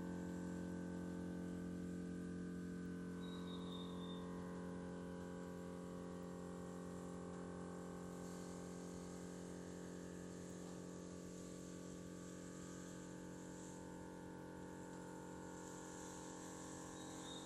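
Steady electrical hum with several fixed tones, from the power electronics of an off-grid solar installation's equipment room: inverters and solar charge controllers running.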